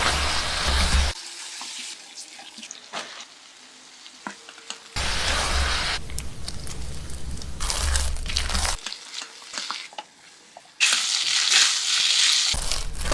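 Kitchen cooking sounds in several abruptly cut segments: a loud hiss that starts and stops sharply, with quieter stretches of light clicks and knocks between them.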